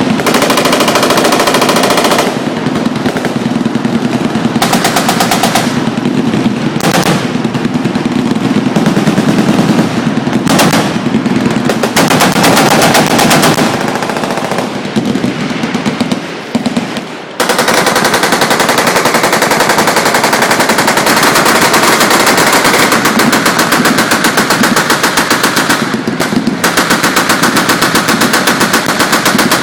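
Many machine guns firing on a range, long overlapping bursts of rapid automatic fire. The fire dips briefly a little past halfway, then resumes as an unbroken stream.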